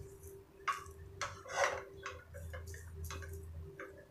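Wooden slotted spatula stirring curry leaves being roasted in a metal kadai: irregular light scrapes and taps against the pan, a couple a second, over a faint steady hum.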